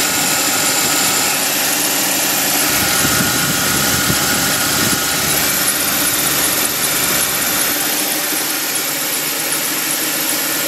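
Mercedes-Benz R350's V6 engine running steadily at idle, recorded up close, with a dense hiss and a faint steady high whine over it. This is the engine noise the owner is showing as a concern.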